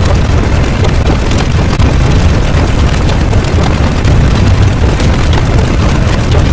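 Synthetic sound effects mixed together into a loud, continuous wall of noise: a heavy low rumble with many small crackles and no clear individual events.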